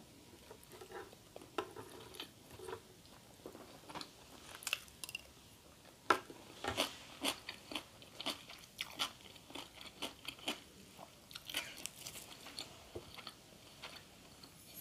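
A person chewing and biting crunchy food close to the microphone: irregular sharp crunches, several a second.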